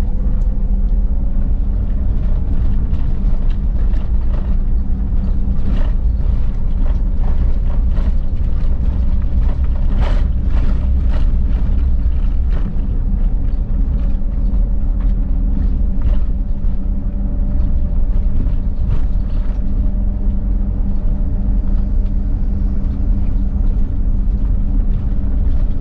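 Vehicle driving along a town street, heard from inside the cab: a steady low engine and road rumble with a faint whine. Scattered clicks and knocks from the cabin come thickest about ten to twelve seconds in.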